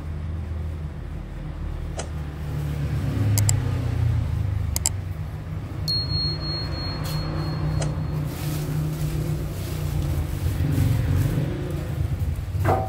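Electric motor of a bakery dough mixer running with a steady low hum, broken by a few sharp clicks and, near the end, a short thump as a flour sack is handled.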